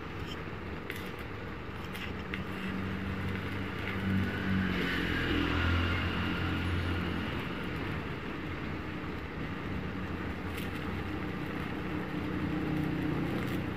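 Stick (MMA) welding arc burning on a Mailtank MIG-200 inverter welder used in its stick mode, a steady hiss with a low hum underneath.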